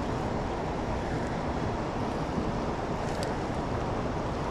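Steady rushing of a river flowing over rocks, with wind on the microphone.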